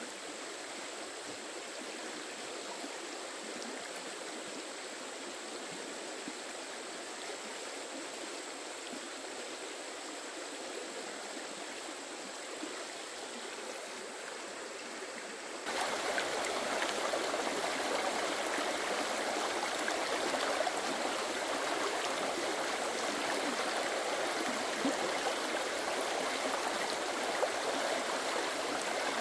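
Steady rush of running water, which turns abruptly louder and fuller a little past halfway.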